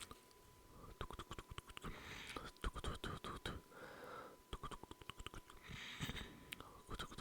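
Close-miked ASMR mouth sounds: many quick wet clicks and smacks of the tongue and lips, with a few soft breathy patches. A faint steady high beep runs underneath.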